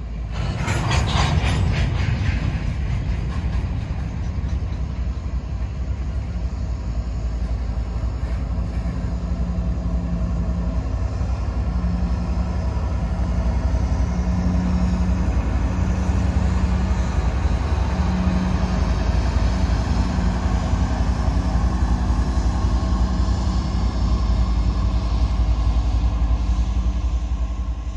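Freight train of loaded covered grain hopper cars rolling past with a steady heavy rumble and wheel clatter, loudest and most clattery about a second in. Partway through, a diesel locomotive at the rear of the train passes, its engine drone running over the rumble.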